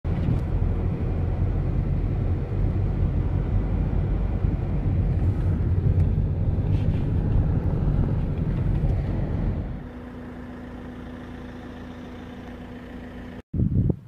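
Car driving, heard from inside the cabin: a loud low rumble of road and engine noise. About ten seconds in it drops to a quieter steady hum, and it breaks off abruptly near the end.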